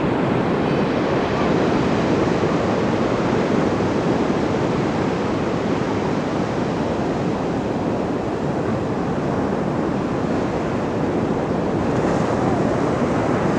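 Pacific surf washing onto a beach: a steady, unbroken rush of waves.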